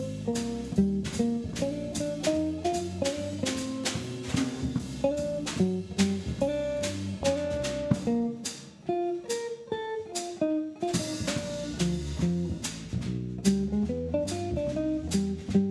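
Live jazz trio: an archtop jazz guitar plays a flowing single-note melody line over a bass guitar and a drum kit, with cymbal strokes keeping a steady swing beat.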